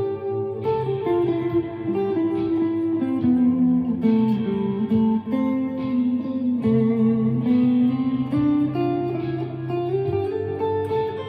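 Chapman ML3 Pro Traditional electric guitar with Seymour Duncan Hot Tele pickups played in an ambient style: plucked notes that ring on and overlap, forming a slow melody.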